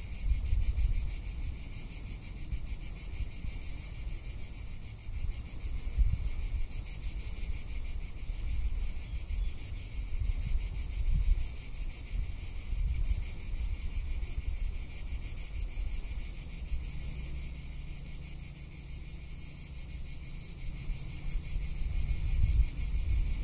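Cicadas singing in a continuous high, finely pulsing buzz, with wind buffeting the microphone in low, uneven gusts.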